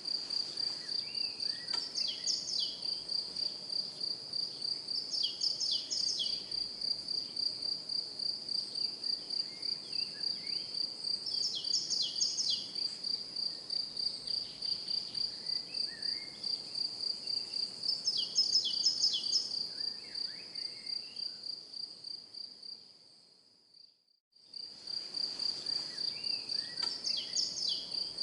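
Garden birds chirping in short groups of quick notes every few seconds, over a steady, high, rapidly pulsing trill. The whole ambience fades out about 23 seconds in and starts again a second later.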